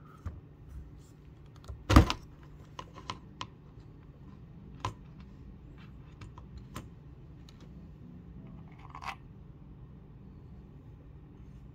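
Scattered light clicks and knocks of small plastic and metal parts being handled: a fuel pump housing and a threaded sensor, with one sharper knock about two seconds in and a quick run of clicks just after. A low steady hum lies underneath.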